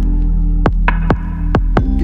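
Lo-fi electronic background music: deep held bass notes under a steady beat of sharp hits.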